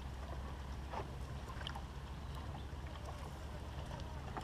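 Steady low hum of a boat's motor, with scattered light clicks and a sharper click near the end.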